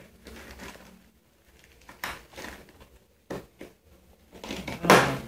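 Drill bits and accessories being handled in a hard plastic tool case: scattered clicks, knocks and rattles of plastic and metal, the loudest knock near the end.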